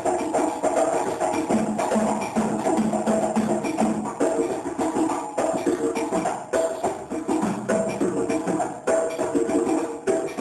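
Djembe and dun-dun drums playing a fast West African rhythm: dense, rapid hand strokes over repeated deeper drum tones.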